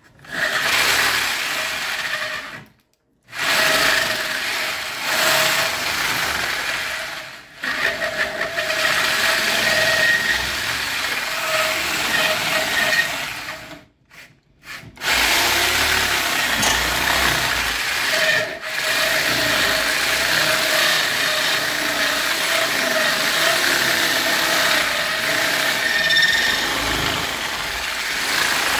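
An electric drill spins a wooden rod through a ring spanner lined with coarse P60 sandpaper, sanding the rod down into a round dowel; the motor's steady whine runs under the scraping of wood on abrasive. The drill stops briefly about three seconds in and again about fourteen seconds in, with short dips near seven and eighteen seconds.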